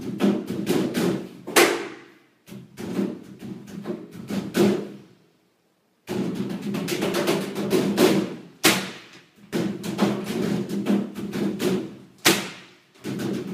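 Tumble dryer giving off a rapid, rhythmic clatter of knocks that sounds like a drum beat. The sound cuts out completely about five seconds in and starts again abruptly about a second later.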